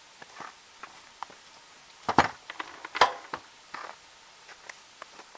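Clunks and scrapes of a homemade sheet-metal snow blade being handled and set down on a stack of bricks, with two loud knocks about two and three seconds in.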